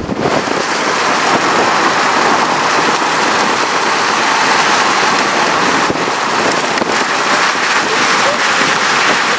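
Steady rain, a dense even hiss with faint scattered patter.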